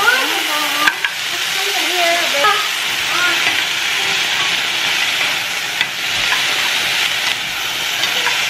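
Frozen mixed vegetables sizzling in a hot frying pan as they are stir-fried with a spatula, with a few light knocks of the spatula against the pan.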